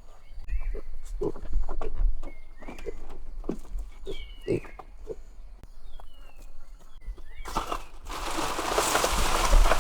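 Small birds chirping, a short high call about once a second, over soft knocks and handling noises. About eight seconds in, a steady, louder rushing noise sets in.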